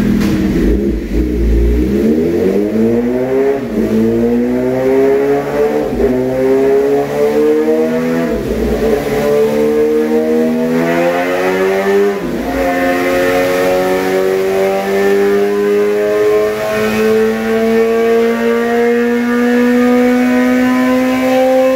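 A 2016 Suzuki GSX-R 750's inline-four, breathing through an M4 shorty slip-on with the catalytic converter deleted, running on a dyno. It climbs through the gears with five upshifts in the first dozen seconds, each a sudden drop in pitch. It then rises slowly and steadily in top gear.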